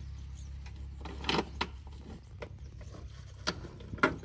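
A John Deere tractor's engine running low and steady, with a few sharp knocks over it, the loudest about a second in and near the end.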